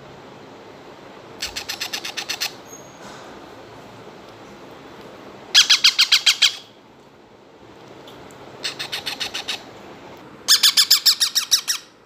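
Baby ringneck parrots giving rapid pulsed squawking calls in four bouts of about a second each, the second and fourth loudest: food-begging calls of chicks being hand-fed.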